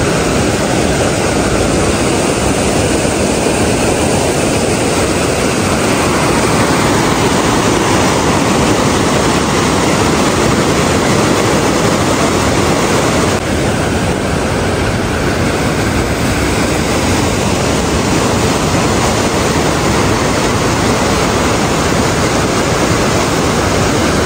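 Loud, steady rushing of a fast whitewater mountain river running over rocks.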